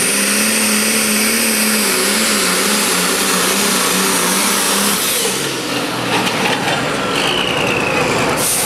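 Pro Stock pulling tractor's diesel engine running hard under full load as it drags the sled, its pitch wavering. About five seconds in the engine note drops off as the tractor stops at the end of its pull, leaving a rush of noise and a brief falling whine.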